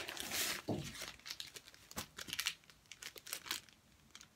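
Plastic packaging being handled and crinkled in short, irregular rustles that die away about three and a half seconds in.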